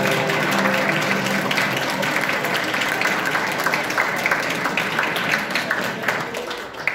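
Audience clapping after the dance music stops just after the start; the applause thins out near the end.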